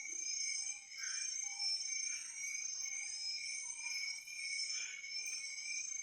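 Steady high-pitched insect chorus of a forest, with short faint animal calls scattered through it.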